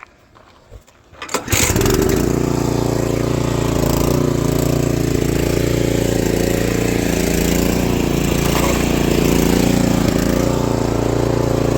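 Benchmark 24-inch snowblower's single-cylinder engine pull-started, catching about a second and a half in and then running steadily at an even speed.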